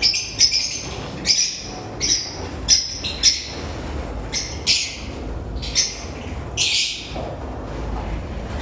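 Lovebirds calling: an irregular run of short, high-pitched chirps and squawks, about ten of them, over a low steady background hum.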